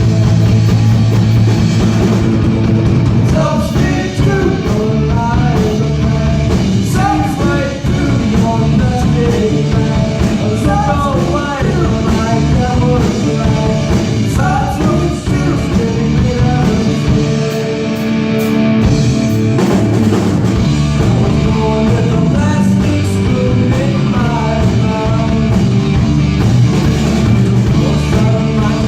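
Rock music with a singing voice, drums, bass and guitar, with a short drop in the bass about two-thirds of the way through.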